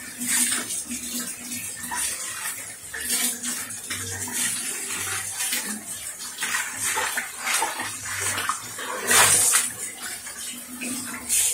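Kitchen tap running onto a stainless steel bowl as it is rinsed by hand, water splashing and drumming on the metal. The splashing swells briefly louder about nine seconds in.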